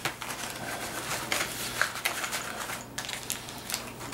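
Rustling and crinkling of a bag and the gear packed in it being rummaged through by hand, with scattered small clicks and scrapes.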